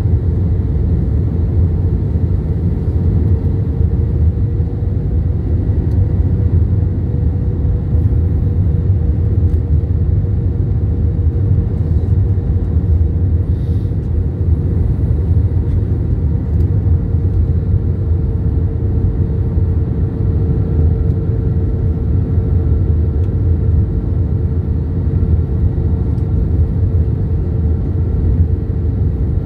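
Airbus A321-131 airliner with IAE V2500 engines: a steady, loud low rumble of engines and airflow with a constant mid-pitched hum, unchanging throughout.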